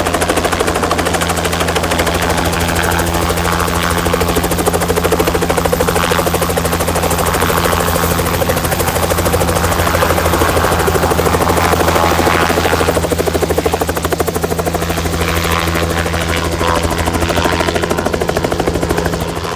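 Light two-bladed helicopter hovering and manoeuvring low overhead with a sling load, its rotor chopping in a loud, steady pulse over a low engine drone.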